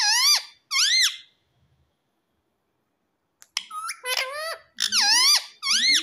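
Indian ringneck parakeet giving short, loud, shrill calls with sweeping pitch: two at the start, then a quick run of about five from about three and a half seconds in.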